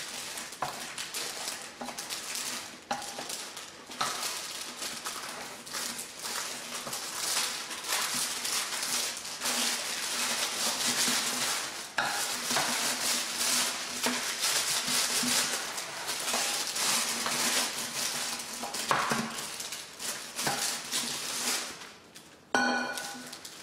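Parchment paper crinkling and rustling, with scraping, as a water bottle is pressed and pushed over it to compact muesli mixture into a baking tray. The noise is irregular and continuous, dipping briefly near the end.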